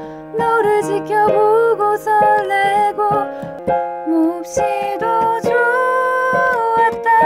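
Music: a melody line with small bends in pitch over held accompaniment chords.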